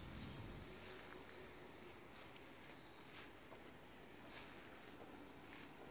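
Near silence: faint garden ambience with a steady high insect hum and soft footfalls on grass about once a second.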